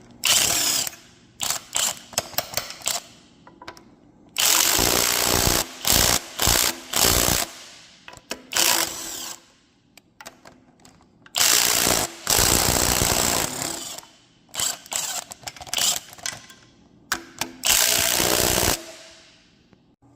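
Power tool run in repeated bursts, several lasting one to two and a half seconds with many short blips between, each starting and stopping abruptly.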